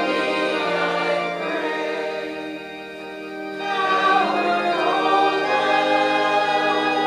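Congregation singing a hymn with organ accompaniment, in long held notes, with a brief drop in loudness between phrases about three seconds in.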